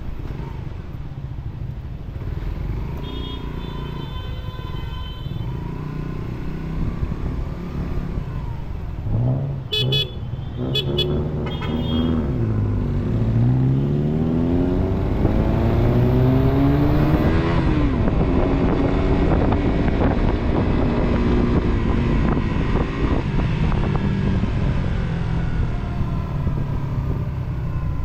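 A vehicle engine pulls away and accelerates, its pitch climbing through the revs, then runs on at a steadier higher pitch. A few short horn toots sound about ten seconds in.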